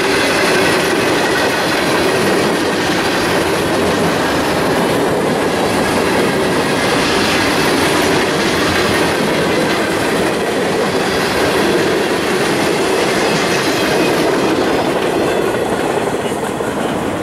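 Freight train's cars rolling past, steel wheels on rail making a steady, loud rumble. The last cars go by near the end and the sound begins to ease.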